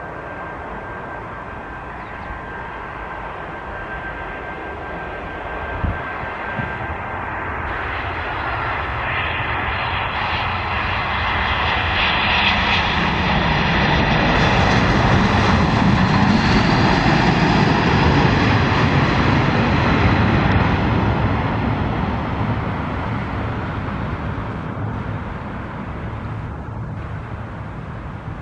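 Airbus A320-214's CFM56 jet engines as the airliner comes in to land and passes close by. A high fan whine rides over the engine noise and drops in pitch about eight seconds in. The sound builds to its loudest around the middle, then fades as the aircraft moves away down the runway.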